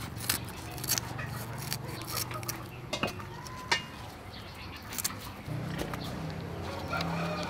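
Kitchen scissors snipping through the tough skin and fins of leather jacket fish: several sharp cuts, the loudest a little under four seconds in, over a steady low hum.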